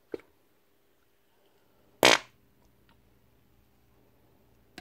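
Grease squeezed out of a plastic tube into an open power-tool gearbox: one short, loud, sputtering squelch about two seconds in, with a faint click just after the start.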